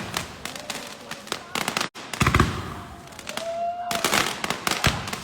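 Fireworks going off in rapid succession: dense crackling with heavy bangs about two seconds in and near the end. A short whistle-like tone sounds about a second before the last bang.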